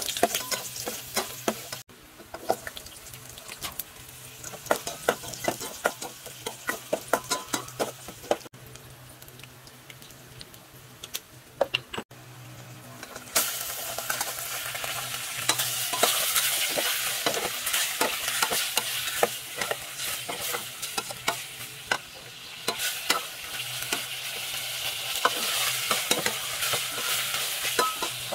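Chopped garlic sizzling in hot oil in a stainless steel pot, stirred with a spatula that clicks and scrapes against the pot. About 13 seconds in, raw chicken pieces go in and the sizzle gets louder as the stirring goes on.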